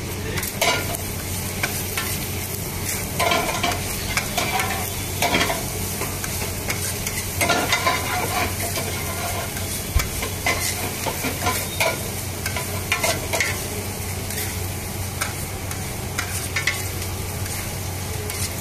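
A metal spatula scrapes and clanks against a large flat iron tawa as rice is tossed and chopped on it. The clanks are sharp and irregular, over a steady sizzle and a low hum.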